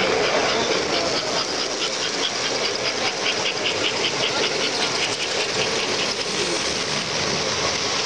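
American Flyer S-gauge model trains running on the layout: a steady motor and wheel rumble, with a fast, even clicking for several seconds in the middle.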